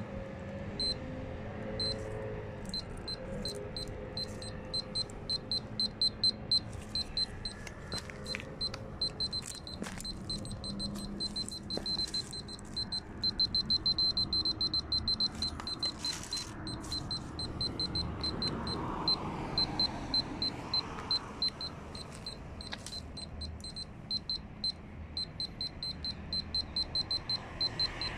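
Handheld radiation survey meter beeping with each detected count, short high beeps at an irregular, random rate that come thick and fast for a few seconds near the middle; the beep rate follows the radiation from the caesium-contaminated soil it is held over.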